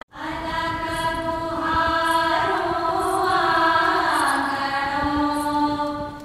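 A voice singing slowly in a chant-like style, holding long notes that step gradually from one pitch to another.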